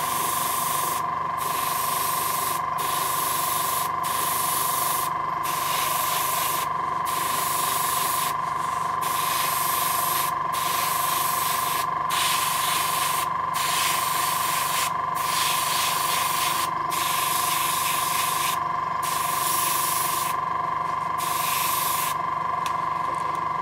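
Airbrush hissing as it sprays paint in short passes, the hiss cutting out for a moment about every one and a half seconds as the trigger is let off. Under it the air compressor hums steadily.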